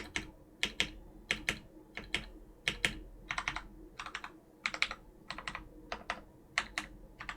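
Typing on a Keychron C1 mechanical keyboard with Krytox 205g0-lubed Gateron Brown tactile switches, a steel plate and stock keycaps. The keystrokes come in quick runs of a few clicks each, one run after another.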